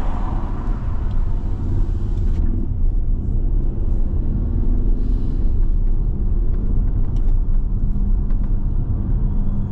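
Steady low rumble of a car driving along a highway, heard from inside the cabin: road and engine noise.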